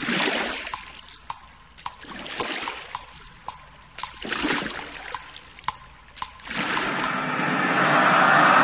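Title-sequence sound design: sharp ticks about twice a second over swelling whooshes. About six and a half seconds in, a steady rushing roar takes over and grows louder.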